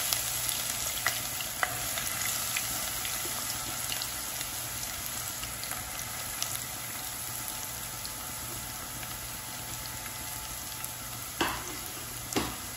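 Sliced onions frying in hot coconut oil: a steady sizzle that slowly quietens, with two short, louder knocks near the end.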